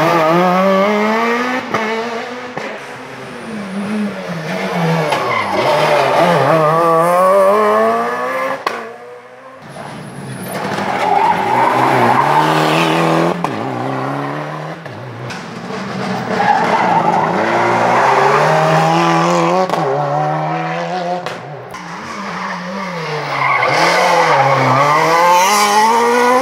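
Rally car engines, among them a Peugeot 207 and a Renault Clio, passing in turn through a hairpin. Each engine note falls as the car brakes into the bend and then rises sharply through the gears as it accelerates away, with several such passes one after another.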